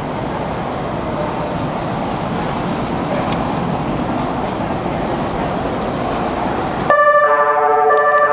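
E259 series Narita Express train pulling out of a station platform, a steady rumble of wheels and running gear. About seven seconds in it cuts off abruptly and an electronic chime melody starts.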